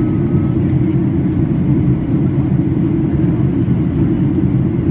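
Steady, deep rush of cabin noise inside a Boeing 737-800 in flight: its CFM56 jet engines and the airflow over the fuselage, heard from a window seat over the wing.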